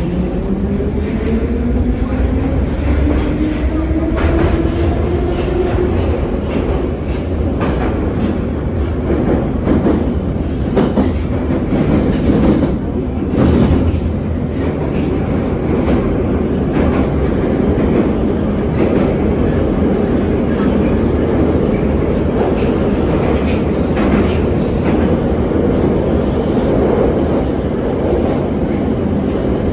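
81-717/714 metro train heard from inside the car as it pulls away: the traction motors' whine rises in pitch over the first several seconds as it accelerates. It then settles into a steady running rumble in the tunnel, with scattered clicks from the wheels.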